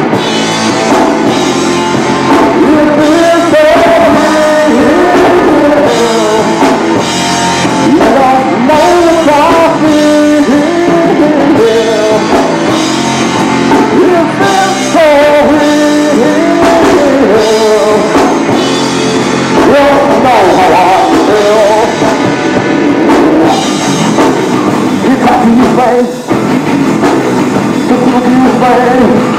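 Rock band playing live: guitars, bass and drum kit in a loud, dense, distorted mix, with some singing.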